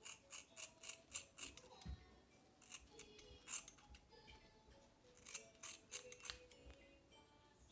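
Hair scissors snipping through short, curly hair, in quick runs of several cuts with short pauses between them. Soft background music plays underneath.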